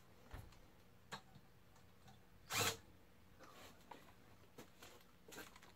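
Faint workbench handling sounds: light clicks and taps of small metal parts and tools, with one short, louder clatter about two and a half seconds in.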